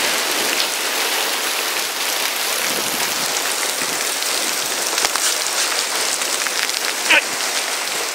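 Heavy hailstorm with rain: a steady dense hiss of hail and rain pelting down, picking up in strength, with a few sharp knocks of single hailstones striking hard surfaces.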